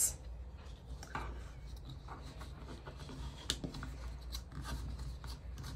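Faint rubbing and light clicks of chenille pipe cleaners being twisted around a wooden paint stick, the stick shifting on a cutting mat, with one sharper tap about three and a half seconds in.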